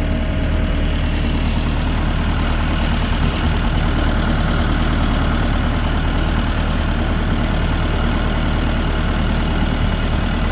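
Tractor engine running steadily while the tractor drives along, a low, even engine drone with no change in speed.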